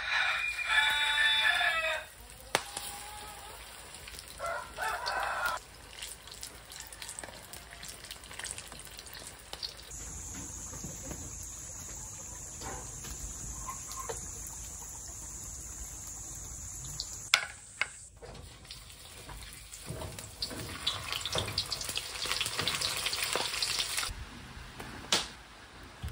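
A rooster crows loudly for about two seconds at the start, then gives a shorter call a few seconds later. After that, oil sizzles steadily in two long stretches as lumpia fry, with a few sharp clicks of utensils in between.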